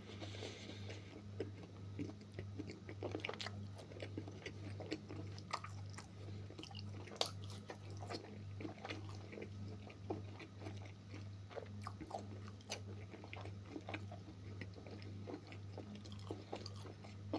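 A person chewing and biting food close to the microphone: many small, irregular wet clicks and smacks. A steady low hum runs underneath.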